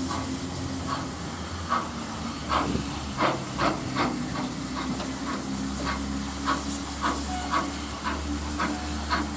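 Steam locomotive working, its exhaust beats coming about twice a second over a steady hiss of steam.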